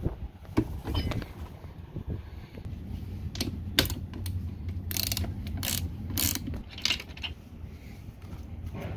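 Socket ratchet wrench clicking in several short bursts, starting about three seconds in, as it turns the mounting nuts off a hydraulic steering helm pump.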